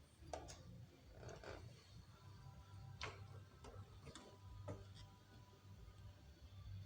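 Faint, scattered clicks and light knocks, about half a dozen at irregular intervals, from hand tools being worked on metal, over a steady low hum.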